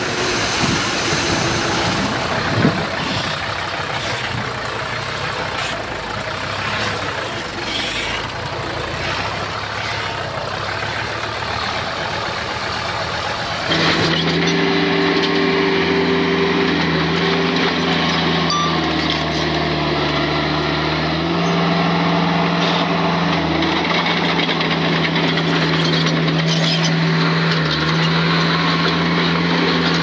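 Small Komatsu bulldozer's diesel engine running under work, with scattered knocks and rattles. About halfway in the sound switches abruptly to a steadier engine note with a clear, even pitch.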